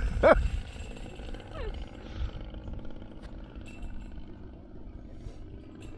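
Faint, steady drone of a Desert Aircraft DA-120 twin-cylinder two-stroke gas engine on a large RC aerobatic plane flying far overhead at low throttle.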